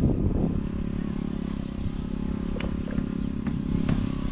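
A small engine running steadily, with a few faint clicks over it.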